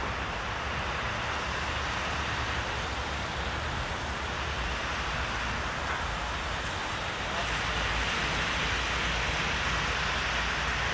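Steady low rumble and hiss of vehicle noise, getting a little louder about seven seconds in.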